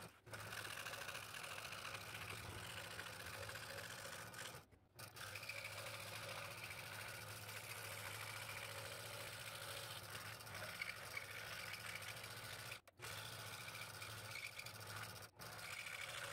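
Scroll saw running with a No. 5 blade, cutting through a taped stack of mahogany, black limba and ash. It makes a steady buzz that breaks off briefly a few times.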